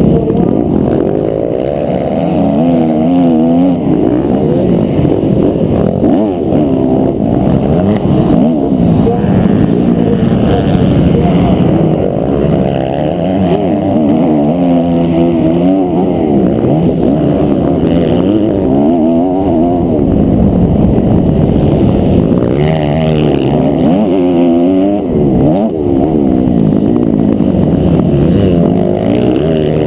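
Onboard sound of a 250cc four-stroke motocross bike engine racing on a dirt track, its note climbing and dropping again every second or two as the rider accelerates, shifts and backs off for corners.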